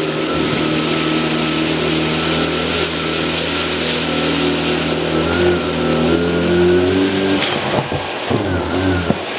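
Electrolux UltraFlex bagless canister vacuum cleaner running under load, a steady motor whine over rushing air. Its pitch wavers about halfway through, and the sound dips and shifts near the end as the suction load changes.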